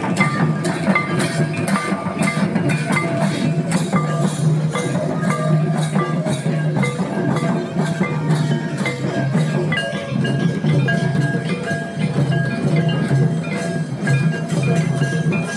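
Santali dance music on barrel-shaped hand drums, a steady, continuous drum beat with short high ringing notes over it.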